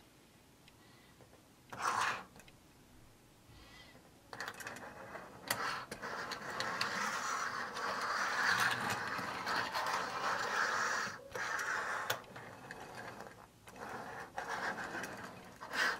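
Small diecast toy car's wheels rolling and scraping across a smooth tabletop as a hand pushes it along: a short scuff about two seconds in, then a long continuous rolling rasp that breaks off after about eleven seconds, followed by a few shorter rolls.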